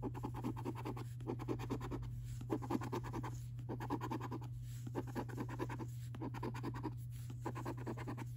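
A coin scratching the scratch-off coating from a National Lottery scratchcard, in quick back-and-forth strokes. The strokes come in short bouts with brief pauses between them as each number panel is uncovered.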